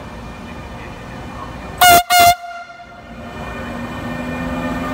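Two short, loud blasts of an E402B electric locomotive's horn about two seconds in: the departure signal. The locomotive's running noise then builds steadily as it pulls away and draws past.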